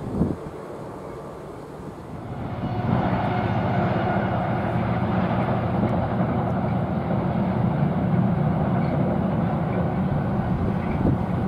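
Wind buffeting the microphone, then, about two seconds in, the steady rumble of a long container freight train crossing a railway bridge, with a low even drone under it.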